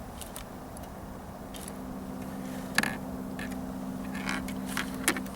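A steady low motor hum comes in about one and a half seconds in, with a few short clicks and scrapes over it.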